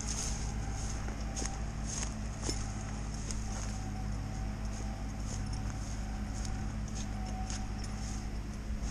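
Vehicle engine running at a steady low hum while it moves slowly along a rutted mud track, with irregular clicks and knocks from the bumpy going.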